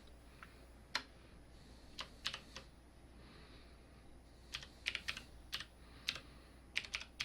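Faint, irregular keystrokes on a computer keyboard: a few scattered key presses, then a quicker run of typing in the second half, as a folder name is typed in.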